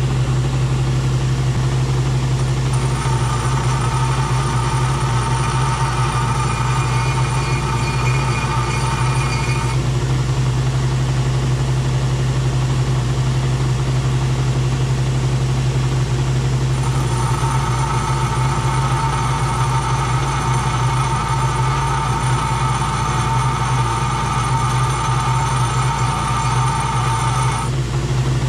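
Bench grinder motor running with a steady hum. Twice, a small TH400 valve-body part is held against the wheel and ground, adding a higher whine for about seven seconds and then about ten seconds.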